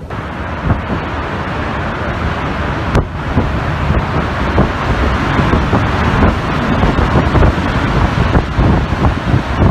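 Hurricane-force wind and driving rain, gusting, with the wind buffeting the microphone; a single sharp click about three seconds in.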